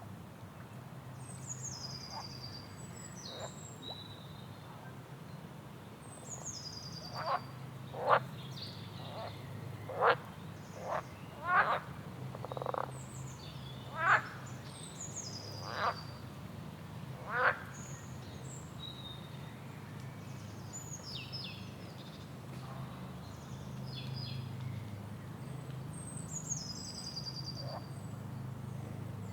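Frog croaking, about nine loud short calls roughly a second apart through the middle, over repeated high falling bird chirps and a steady low hum.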